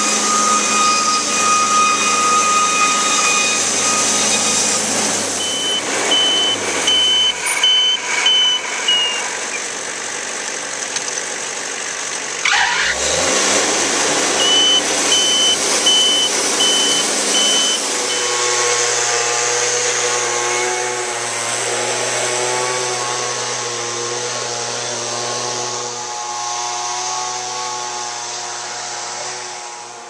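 Wood-Mizer portable band sawmill's engine running steadily, with two runs of short, evenly spaced high beeps in the middle and a sound that falls in pitch twice. About two-thirds of the way through, the running note changes to a different steady pitch.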